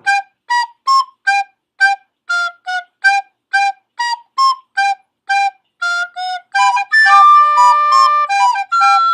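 Flute-like melody of quick, separate notes, about two to three a second, that turns into longer held notes sounding together near the end.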